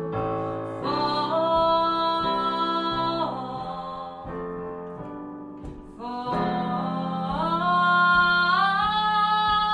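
A singer holding long wordless notes, gliding smoothly from one pitch to the next, over a sustained instrumental accompaniment. The sound thins out for a moment around the middle, then the voice comes back and climbs higher.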